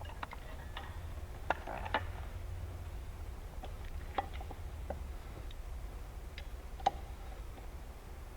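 Scattered light clicks and taps of parts and hardware being handled and fitted during assembly, a handful of them sharper, over a steady low hum.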